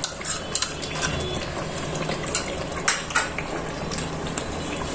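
Chicken curry simmering in a pot: a steady bubbling hiss with scattered sharp pops and clicks.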